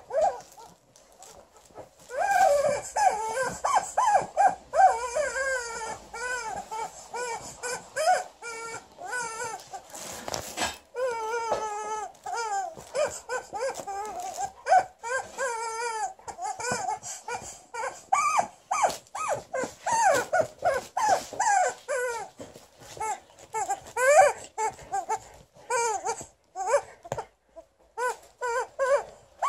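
Alaskan Malamute vocalizing in a long run of short, wavering whines and grumbles, with crinkling of a plastic bag as she worries a rubber chicken toy.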